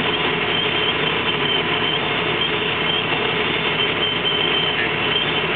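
Steady engine and road noise of a truck cruising at highway speed, heard from inside the cab.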